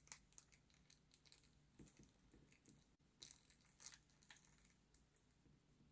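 Faint close-up mouth sounds of someone chewing soft goat cheese: small wet clicks and lip smacks, coming thicker about three to four and a half seconds in.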